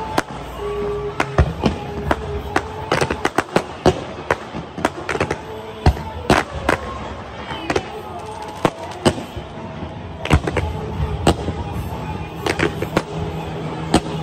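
Aerial fireworks going off in a continuous barrage of sharp, irregular bangs and cracks, several a second, with no let-up.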